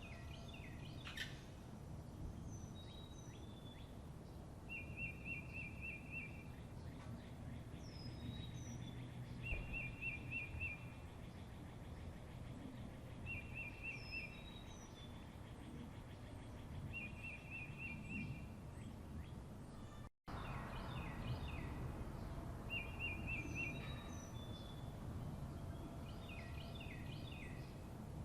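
Songbirds singing over a steady low rumble of background noise: one bird repeats a short, rapid trill about every four seconds, with other birds' chirps and down-slurred whistles in between. The sound drops out for an instant about twenty seconds in.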